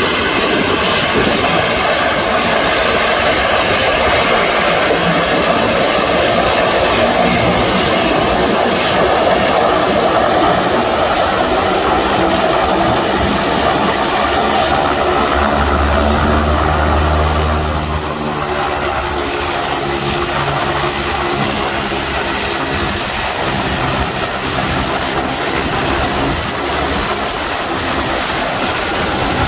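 Twin turboprop engines of a de Havilland Canada DHC-6 Twin Otter seaplane running as it taxis on its floats: a steady engine din with a high turbine whine that rises in pitch about eight seconds in. About eighteen seconds in the engine noise drops off.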